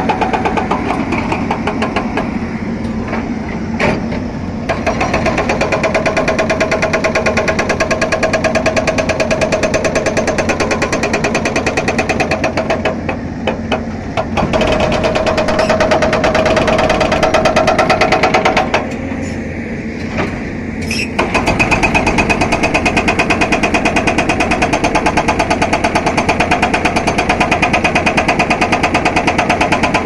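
Hydraulic rock breaker on a Cat 320D excavator hammering rapidly into rock, over the excavator's steady diesel engine. The hammering stops briefly twice, a little before halfway and about two-thirds of the way through, leaving mostly the engine.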